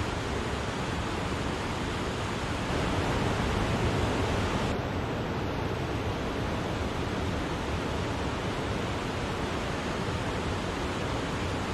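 Steady, dense rush of falling water from a large waterfall, Wachirathan Falls. About five seconds in, the high hiss drops away abruptly and the rush runs on duller.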